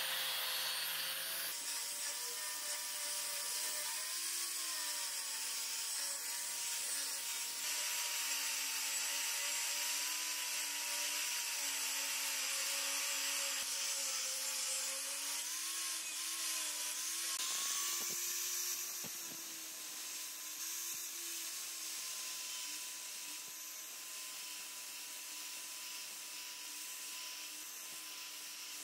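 Electric angle grinder with a sanding disc running steadily while sanding a wooden stick: a motor whine over the hiss of abrasive on wood. The whine wavers a little in pitch as the disc bears on the wood, and the sound grows somewhat quieter about two thirds of the way through.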